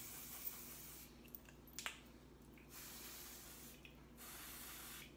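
Aerosol can of spray-on hair colour hissing in three long bursts with short breaks, as the colour is sprayed onto hair. A single click comes just before the second burst.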